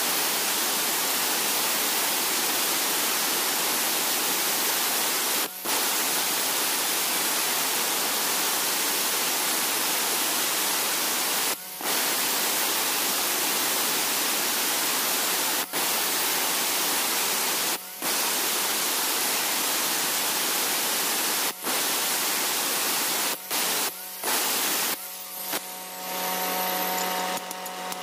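Handheld angle grinder with a cutting disc grinding grooves into hard river stone: a loud, steady grinding hiss that breaks off for a moment several times as the disc is lifted between cuts, then stops near the end.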